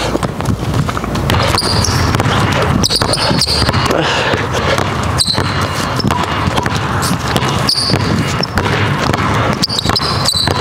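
Two basketballs being dribbled at once on a hardwood gym floor, a rapid run of bounces.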